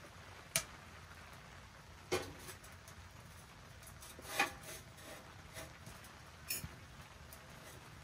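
A few sharp clicks and light knocks as a four-blade heat-powered stove fan is handled and set on the metal top of a small wood-burning tent stove, over a faint steady hiss.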